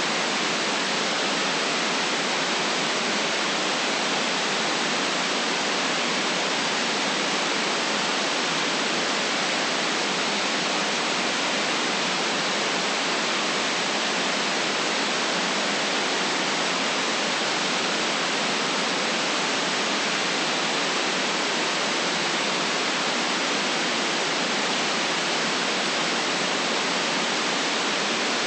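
Steady white noise: an even, unbroken hiss cut off below the deepest bass and above the highest treble, with no change from start to end.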